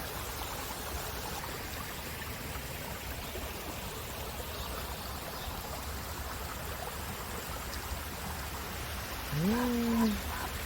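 Steady outdoor rushing noise with a low rumble; about nine seconds in, a person gives a short cry that rises in pitch and then holds.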